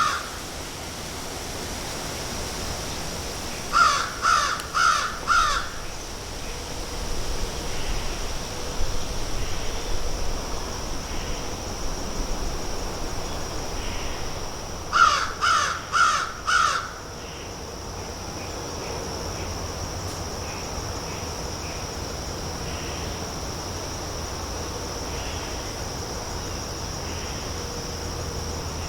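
American crows cawing in two bursts of four calls each, about four seconds in and again about fifteen seconds in. Under them a steady, high-pitched insect drone typical of crickets runs on, with faint scattered small sounds of the crows picking at food in between.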